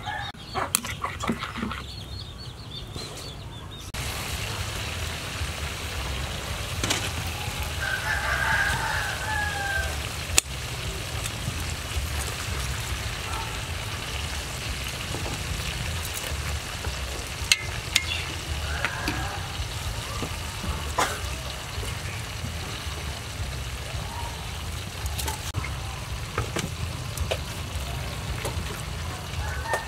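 A spoon clinks and scrapes in a bowl of dipping sauce at the start. From about four seconds in, a pot of chicken and vegetables in its juices keeps up a steady sizzling hiss, with a few sharp metal clicks of tongs against the aluminium pot. Chickens cluck a few times in the background.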